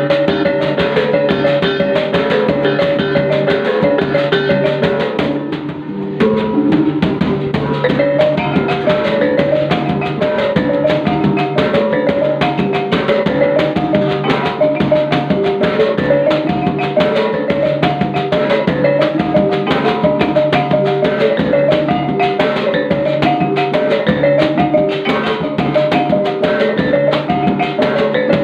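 Maguindanao kulintang-style gong music: a fast, repeating melody on tuned gong chimes over a steady, busy drum beat, with a brief drop in loudness about five seconds in.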